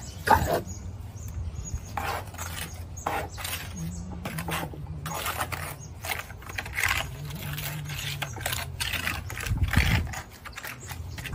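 Steel trowel scraping and slapping sandy render, scooped from a plastic tub and spread into a quoin mould, in an irregular run of short scrapes and knocks, over a low steady hum.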